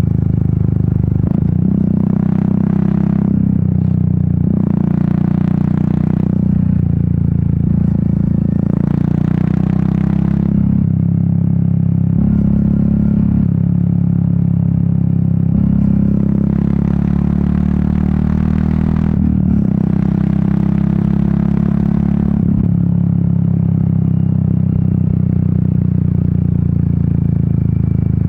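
Royal Enfield Meteor 350's single-cylinder engine and exhaust running steadily under way. Bursts of rushing noise come and go over it four times.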